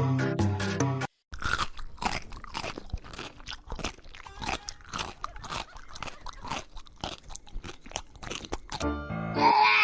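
Something crunchy being chewed, a long run of irregular crisp crunches. Music plays for about the first second and comes back near the end.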